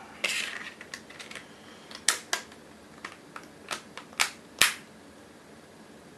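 Plastic back cover of an Infinix Hot 2 phone being pressed on: a short scrape, then a series of sharp clicks as its clips snap into place, the loudest a little past halfway through.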